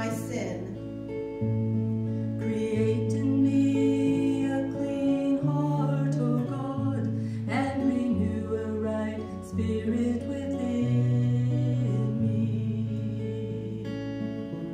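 Instrumental music: strummed acoustic guitar chords over held bass notes that change every second or two.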